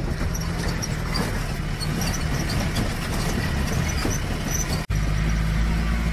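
Jeep engine running and road noise heard from inside the moving vehicle. The sound drops out for an instant about five seconds in, then the low engine hum continues more evenly.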